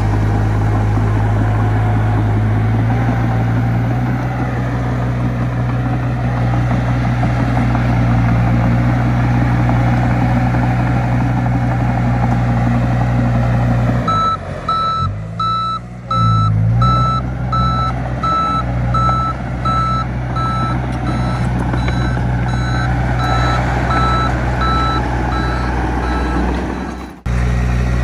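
Heavy diesel earthmoving machinery running steadily. About halfway in, a reverse alarm starts beeping at about two beeps a second as a machine backs up, and it keeps going until near the end.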